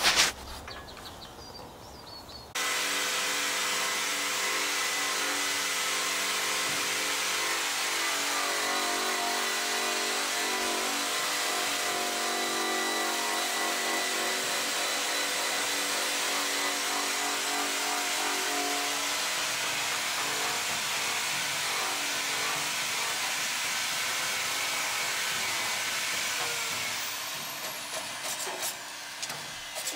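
Electric grinder with a paint-stripping disc running steadily against a steel car fender, grinding the paint off down to bare metal. It starts suddenly a couple of seconds in and drops away near the end.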